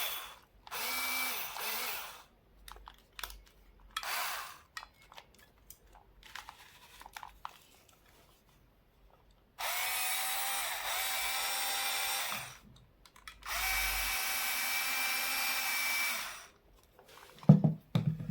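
Crown CT 22024 cordless drill-driver test-run on its freshly repaired battery: the motor whines up to speed and stops in repeated trigger bursts, four runs of about one to three seconds with light clicks between. A few low knocks near the end.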